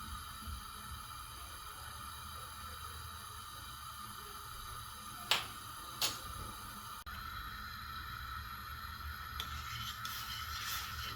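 Two sharp clicks, a little under a second apart, over a steady low hum and hiss.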